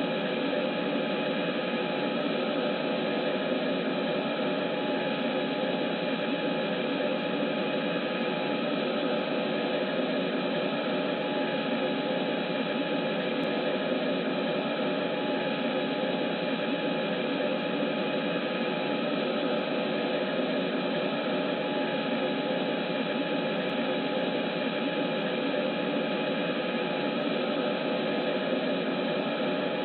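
Aircraft engine noise as heard in a cockpit: a steady, unchanging rushing drone with faint steady tones in it, thin-sounding with no deep bass.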